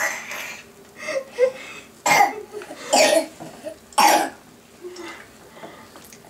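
A person coughing: several short, sharp coughs about a second apart, stopping about four seconds in.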